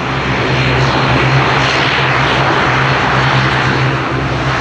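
Airliner engines running loud and steady, a dense rushing noise over a constant low hum.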